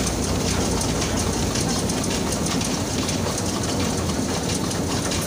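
Rice threshing machine running steadily, with a continuous mechanical rattle and clatter.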